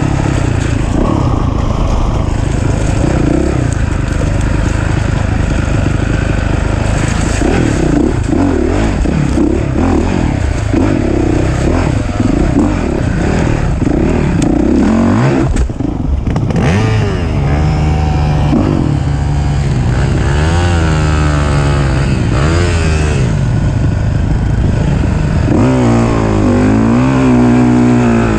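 Dirt bike engine heard close up from the bike itself, the revs rising and falling over and over as the throttle is worked. The engine drops away briefly about halfway through, then climbs in repeated rising sweeps.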